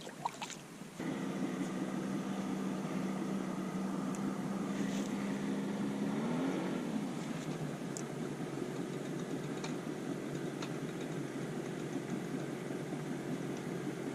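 A boat motor starts about a second in and runs steadily, its pitch rising briefly past the middle before settling again.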